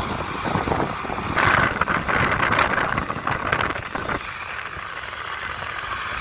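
Mahindra 605 DI tractor with a front loader working, its diesel engine running steadily. From about a second and a half in to about four seconds, a bucket of sand pours into the steel bed of a dump truck as a loud rush of noise.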